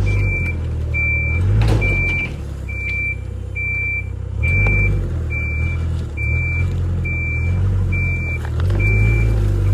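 Heavy vehicle's reversing alarm beeping steadily, a single high tone about one and a half times a second, over the vehicle's engine running low, its rumble swelling and easing as it works.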